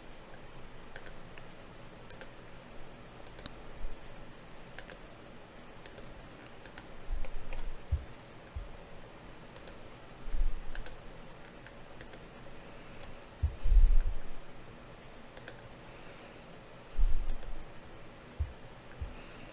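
Computer mouse clicking about a dozen times at irregular intervals, with several low dull thumps on the desk or microphone among them, the loudest a little past the middle.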